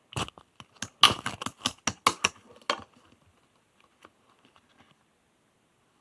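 Clear slime being pressed and squished by hand, giving a quick run of sharp clicks and pops for about three seconds, then a few faint ticks.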